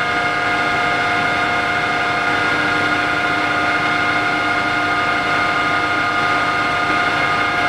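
Kingston HJ-1100 tool room lathe running, its headstock drive giving a steady whine of several held tones over an even mechanical hum.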